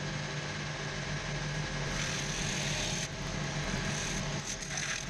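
A cobbler's belt sander (shoe-finishing machine) runs with a steady motor hum. A leather shoe sole pressed against its abrasive wheel adds a harsh sanding hiss for about a second from two seconds in, and again near the end. The top layer of the sole leather is being sanded off to roughen it so the glue and rubber sole will stick.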